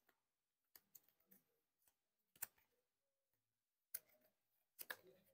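Near silence broken by a few faint, sharp clicks and taps of sleeved trading cards being handled on a playmat, the sharpest about two and a half seconds in and a small cluster near the end.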